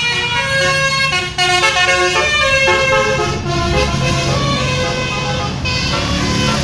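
Bus 'telolet' musical horn playing a tune of steady notes that step up and down in pitch, over the low running of the bus engine.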